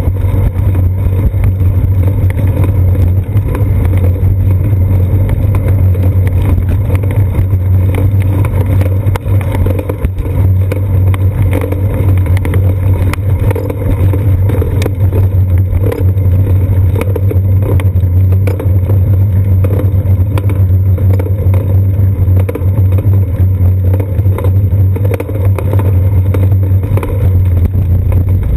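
Steady loud rumble of wind and road vibration on a seat-post-mounted GoPro Hero 2 as a bicycle rolls along a concrete sidewalk, with frequent small knocks and rattles.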